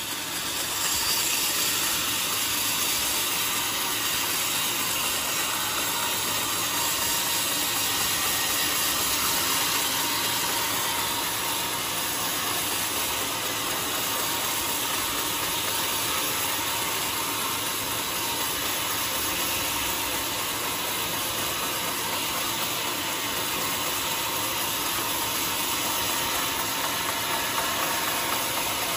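Large band sawmill ripping lengthwise through a squared teak log: the saw running with a steady, even noise as the blade cuts through the wood, a little louder from about a second in.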